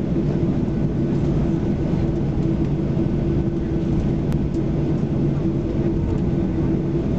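Cabin noise inside a taxiing Boeing 737-800, its CFM56-7B turbofan engines running steadily: a constant rumble with a steady low hum.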